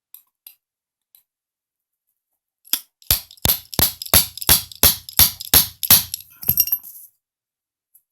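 Small hammer striking a pin punch to drive a tapered roll pin into an AR-15 charging handle latch: a few light taps, then a run of about ten sharp metallic strikes at about three a second, ending in a brief rattle. The pin is stubborn and won't seat fully.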